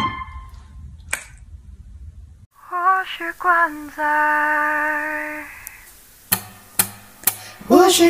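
A piano chord dies away, then a woman's voice sings a short phrase and a long held note that fades out. Three sharp clicks follow about half a second apart, and singing begins near the end.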